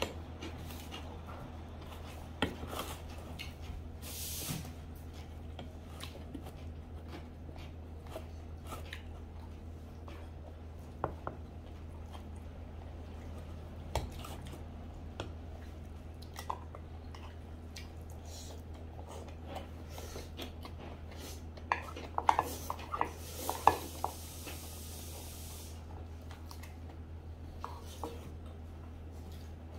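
Someone eating: chewing, with wooden chopsticks and a spoon clinking and scraping against stainless steel lunch-box containers in scattered small clicks, and a quick run of louder clinks a little past halfway. A steady low hum sits underneath, and a brief hiss comes twice.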